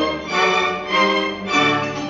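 Chamber string orchestra of violins and lower strings playing an Arabic-classical concerto passage: held, accented chords that swell about every half second.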